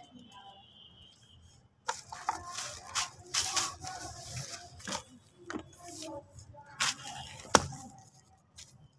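Plastic sheeting crinkling and damp sand-and-cement mix crunching as it is handled. The run of crackles and rustles begins about two seconds in, with a sharp knock near the end.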